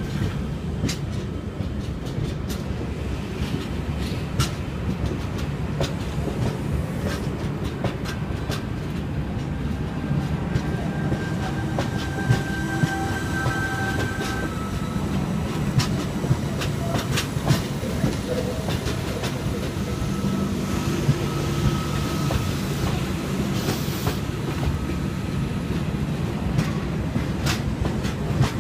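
A NSW V-set double-deck electric intercity train pulling out of the platform: a steady low rumble of the cars rolling, with irregular clicks as the wheels cross rail joints and points, and a faint high squeal now and then.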